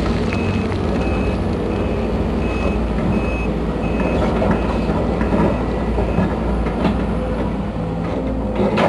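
Case CX210B excavator's diesel engine running steadily while its travel alarm beeps, a short high beep about every 0.7 s, stopping about halfway through.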